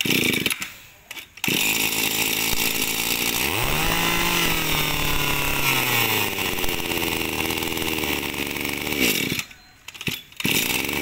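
Shindaiwa 23cc two-stroke brush-cutter engine pull-started; it catches about a second and a half in and runs. It revs up and back down once, then cuts off abruptly a couple of seconds before the end.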